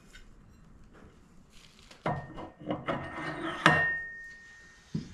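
Metal clutch parts being handled and fitted onto a small engine's output shaft: a run of clinks and knocks about two seconds in, then one sharp metallic clink that rings on for about a second, and a single thump near the end.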